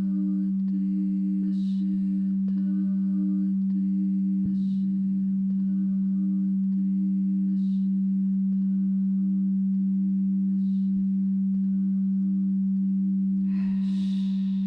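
A steady humming drone of tones, like a sustained singing bowl, with a higher tone pulsing several times a second and a soft high chime about every three seconds. Near the end comes a breathy onset close to the microphone.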